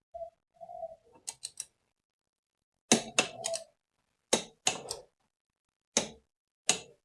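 Sharp metallic clicks of a wrench on motorcycle engine mount bolts: a brief squeak, a quick run of three small ratchet clicks, then about eight loud clicks in groups of two or three.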